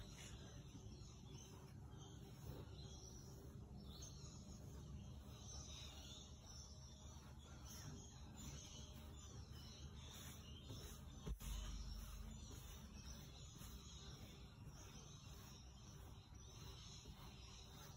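Near silence with the faint, scratchy swish of a wide bristle brush scrubbing paint across canvas, and a single soft knock about eleven seconds in.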